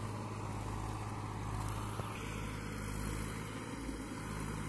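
Massey Ferguson 241 tractor's three-cylinder diesel engine running steadily under load, pulling a seven-tine cultivator through the soil in third gear.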